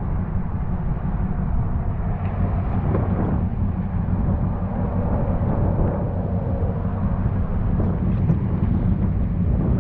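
Vehicle engine idling with a steady low rumble, most likely the tow vehicle's engine running while the tow strap is hooked up.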